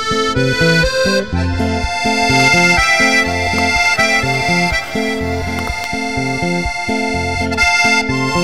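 Background music: an instrumental tune of reedy held notes over a bass line that alternates between low notes and chords.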